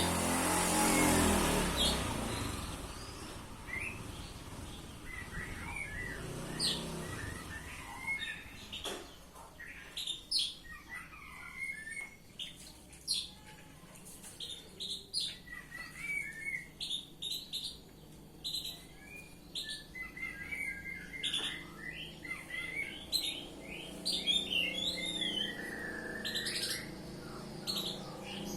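Oriental magpie-robin (kacer) singing a long, varied run of whistles, chirps and sharp high notes. A passing engine fades out in the first two seconds.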